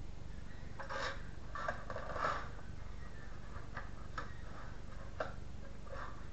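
Handling noise from a cardboard box and plastic toy parts. A scraping, rustling stretch comes about a second in, followed by a few scattered sharp clicks.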